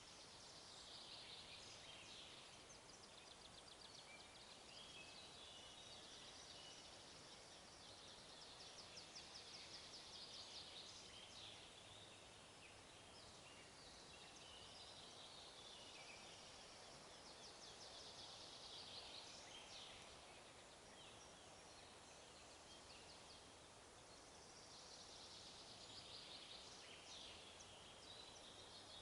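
Faint forest ambience: small birds singing, with high trilling phrases recurring every several seconds over a steady soft hiss.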